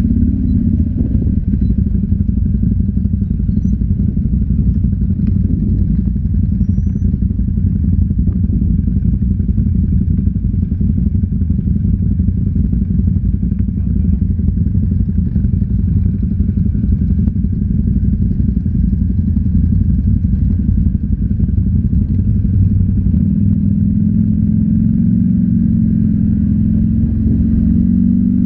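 ATV engine running steadily under way; about 23 seconds in, its note rises as it speeds up.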